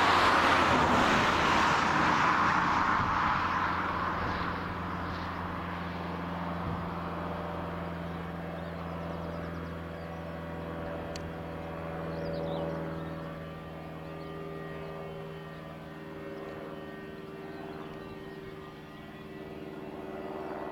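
Vickers VC10's four rear-mounted Rolls-Royce Conway jet engines, far off, running at low power as the aircraft lines up on the runway: a steady hum of several tones. A loud rushing noise at the start fades away over about four seconds.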